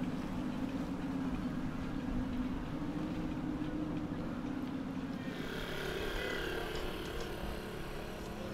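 Azimut 66 motor yacht's engines running with a steady low drone as it cruises past. About five seconds in this gives way to the higher whine of a small tiller outboard motor pushing a jon boat, with water splashing against the hull.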